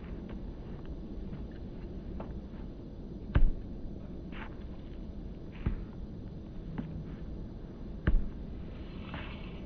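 Sharp thuds of a soccer ball struck by a foot, three loud ones a little over two seconds apart and a fainter one before them, as the ball is kicked high again and again, over steady outdoor background noise.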